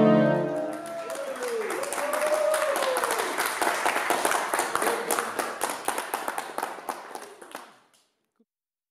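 The song's last held chord stops about a second in, and an audience claps, with a voice or two cheering early on. The applause fades out shortly before the end.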